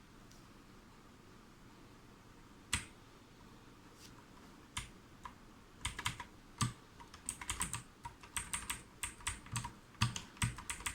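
Armaggeddon MKA-2C mechanical keyboard's clicky blue switches being pressed as in gaming. A single click about three seconds in, a few scattered clicks, then rapid, irregular clicking through the second half.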